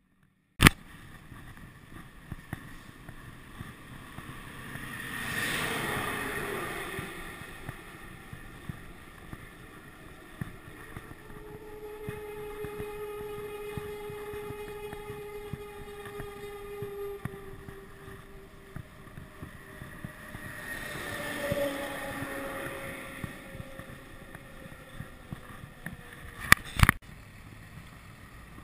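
Wind on the microphone and tyre noise from a bicycle rolling along a road, with two vehicles passing, each a swell of noise that drops in pitch as it goes by, about five and twenty seconds in. A sharp click opens the sound, and a few more clicks come near the end.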